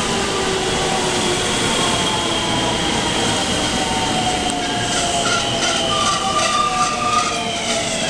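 JR West 223 series 2000-subseries electric train pulling into the platform, its motor whine slowly falling in pitch as it slows. In the second half come a quick run of clicks from the wheels over rail joints and a brief higher squeal.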